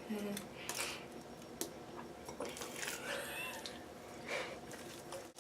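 Faint handling noises: scattered light clicks and soft squishing as chocolate is worked into slime, with a brief squeak about three seconds in.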